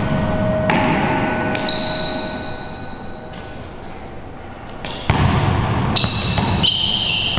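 A basketball being dribbled on a hard indoor court floor, bouncing several times, with high steady tones coming and going over it.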